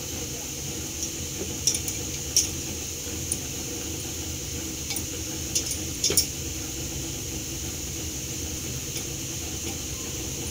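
Light clinks and taps against an aluminium pressure cooker as leaf-wrapped rolls are packed into it by hand: a few short sharp knocks over a steady background hiss.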